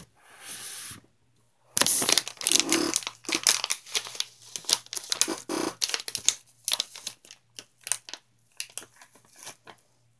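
Close-up crinkling and crackling of something being handled, a rapid, irregular run of small sharp crackles starting about two seconds in, after a brief soft rustle.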